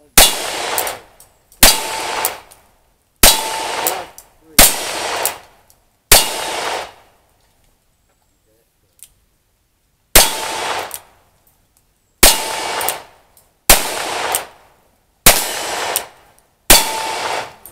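Ten single-action revolver shots: five about a second and a half apart, a pause of about four seconds, then five more, as one revolver is emptied and then the second. Each shot is followed by a brief metallic ring from the steel target.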